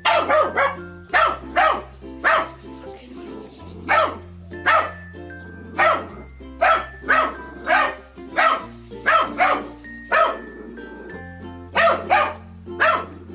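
A dog barking over and over, short sharp barks coming one or two a second at an uneven pace, over background music with a slow-changing bass line.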